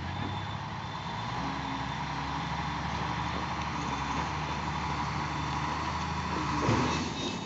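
Backhoe's diesel engine running steadily, with a short, louder sound with a sliding pitch near the end.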